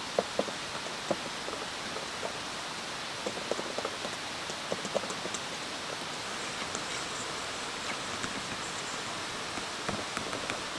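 Okonomiyaki batter being stirred in a stainless steel mixing bowl: irregular light clicks and taps of the utensil against the metal, over a steady hiss.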